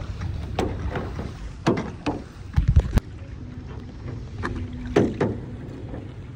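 Kayak paddles dipping and splashing in the water, a stroke every half second to second, with wind rumbling on the microphone.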